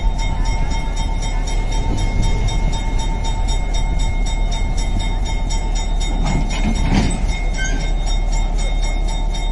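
Diesel locomotive running: a steady low rumble with a steady high whine held over it, and a short louder burst of noise about six to seven seconds in.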